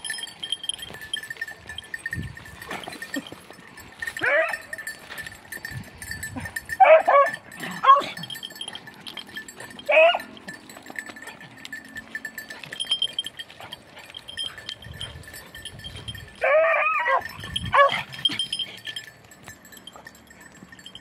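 Hunting beagles baying: short, high yelping bays, some single and some in quick pairs, about eight across the twenty seconds.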